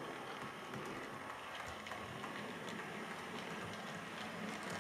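Model Class 105 DMU running along the track: the steady whirr of its small electric motor with faint, scattered clicks of its wheels over the rails.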